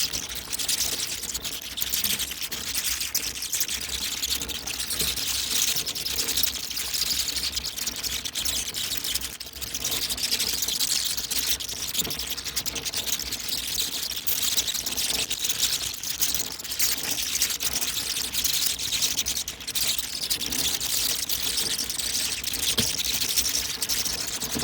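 A flying-fox colony in trees: a dense, continuous chatter of many high, crackling calls and clicks.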